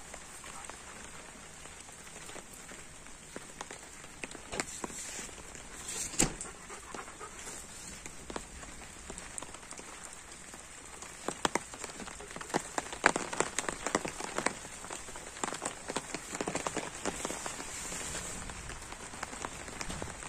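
Light drizzle pattering steadily, with many scattered sharp drop-taps close by that grow thicker in the second half.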